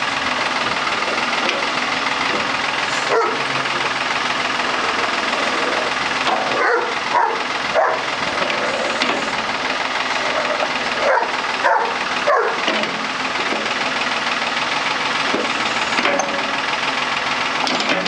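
Backhoe engine running steadily, while a German Shepherd barks at the bucket in short bursts, several times over.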